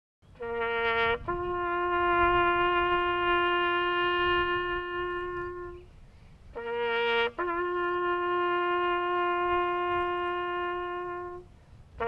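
Solo brass horn playing a slow bugle call: a short low note leaps up to a long held note, then after a brief pause the same pair comes again.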